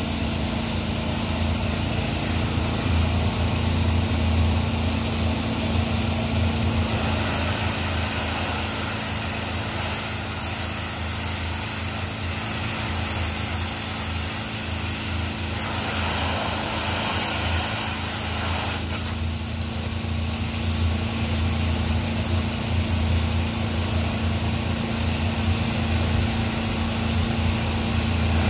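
Landa PGDC 4-3000 pressure washer's engine running steadily under load, with the hiss of high-pressure water spraying from the wand or surface cleaner. The spray hiss changes character a few times, brightening for a few seconds past the middle, while the engine drone stays constant.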